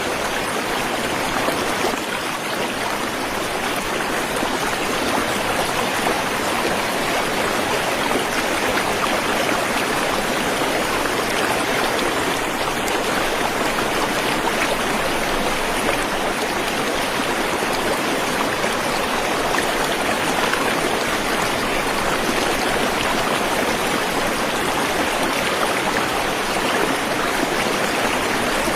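Waterfall and stream water rushing over rocks: a steady, even rush with no breaks or changes.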